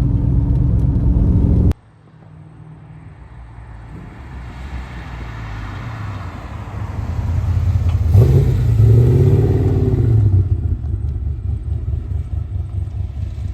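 Holden 5.0-litre 304 V8 of a VS Commodore SS droning steadily, then after a sudden cut heard from outside. It grows louder as the car approaches, is loudest about eight seconds in with the engine note bending up and down, then eases off a little.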